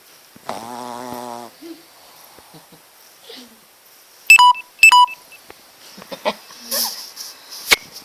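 A shih tzu's short, pitched, wavering snoring breath lasting about a second. About four seconds in come two loud electronic beeps half a second apart, the loudest sounds, followed by scattered clicks and rustling and one sharp click near the end.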